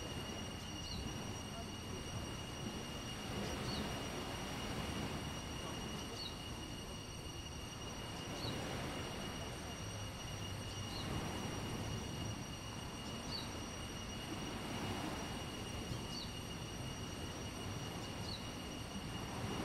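Beach ambience: small sea waves washing onto the shore, swelling every two to three seconds, over a steady hiss. A short high chirp repeats about every two and a half seconds, and a thin steady high tone runs underneath.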